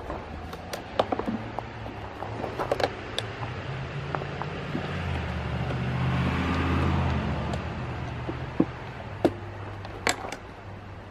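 Yamaha XJ750 air-cooled inline-four engine running on a single Nibbi carburetor fitted to a homemade cast-aluminium intake manifold. It revs up about halfway through and settles back, with scattered sharp clicks throughout.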